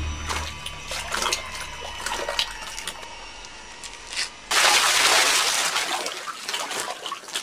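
Water splashing and sloshing in a well, with scattered small splashes, then a sudden loud rush of splashing about four and a half seconds in that dies away over a couple of seconds.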